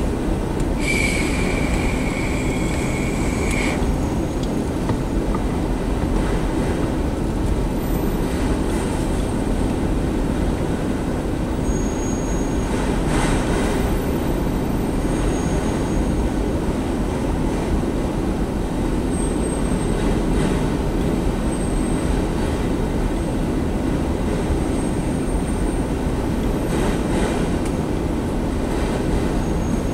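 Freight train of autorack cars rolling past with a steady noise of steel wheels on rail. A high wheel squeal sets in about a second in and lasts a few seconds, and fainter squeals come and go later. There are two brief louder clatters, around the middle and near the end.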